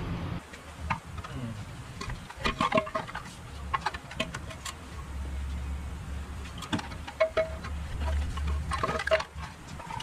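Metal hand tools on bolts: a wrench and socket clicking and clinking against metal in scattered clusters, some strikes with a short ring. A steady low hum runs through the middle.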